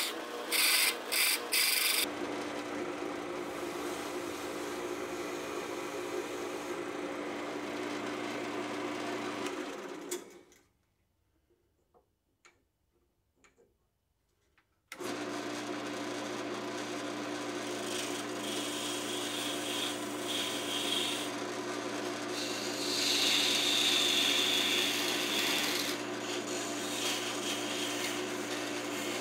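Wood lathe spinning a hard maple blank while a turning gouge, and later a flat chisel, cuts and scrapes the ends down to bearing size; the cutting comes in stretches over a steady motor hum. About ten seconds in, the lathe is stopped and there are about five seconds of near silence with a few faint clicks, then it runs again.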